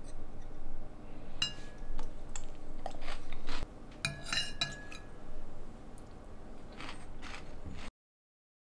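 Cutlery and dishes clinking: scattered light taps and clinks, some ringing briefly, with a quick run of several clinks about four seconds in. The sound cuts off abruptly near the end.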